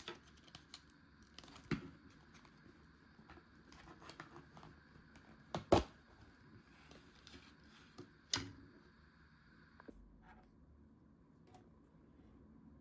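Food packaging being handled and opened: scattered clicks, crinkles and short tearing sounds. The loudest is a sharp pair of clicks about six seconds in, with another about two seconds later.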